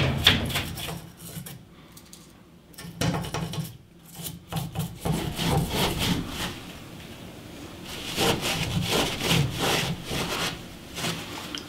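Hand scrubbing and wiping on plumbing fittings: a small brush scrubbing inside a washing machine's plastic hose inlet, then a cloth rubbing the threaded outlet of a water supply valve. The rubbing comes in uneven bursts of short strokes with brief pauses between them.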